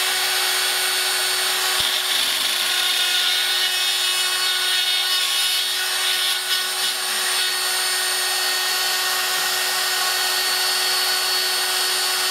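Proxxon mains-powered rotary drill running steadily in a pantograph engraver, its D-cutter milling thin nickel silver sheet. The sound is a constant motor whine with the hiss of the cut, which is going cleanly.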